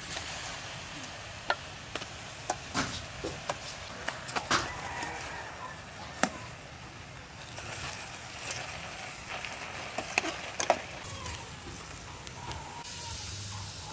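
Metal cooking utensils, a ladle and tongs, clinking and knocking against a metal pot of braising chicken: a dozen or so sharp clicks scattered through, with a brighter hiss coming in near the end.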